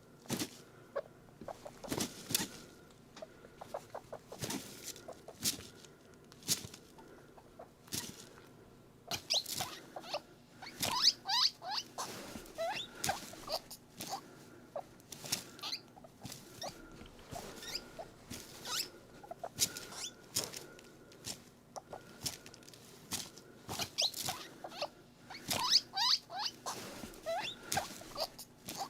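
Guinea pig squeaks: bursts of short, rising, high squeaks a third of the way in and again near the end, over a steady run of sharp clicks.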